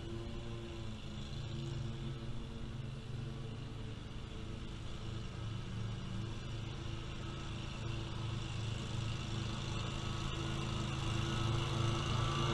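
Great Dane Super Surfer stand-on mower running steadily with its blades engaged while mowing, growing louder over the last few seconds as it approaches.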